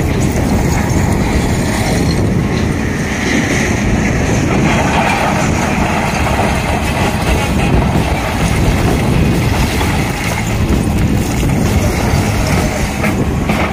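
Hyundai crawler excavator's diesel engine running steadily under load as its bucket drags through a heap of crushed stone, spreading it level. A higher whine comes and goes in the first half.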